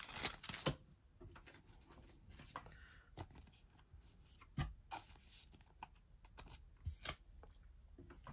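Thin plastic card sleeve crinkling as it is pulled from its pack, then soft rustles and a few light taps as a trading card is slid into the sleeve.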